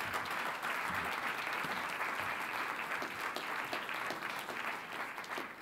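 Audience applauding: many hands clapping steadily, dying down near the end.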